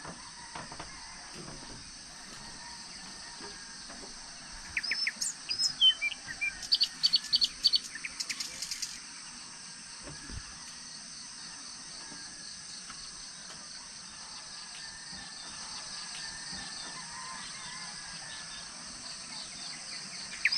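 Wild birds chirping in quick runs of short, high, repeated calls, loudest between about five and nine seconds in, over a steady high-pitched hiss of outdoor ambience.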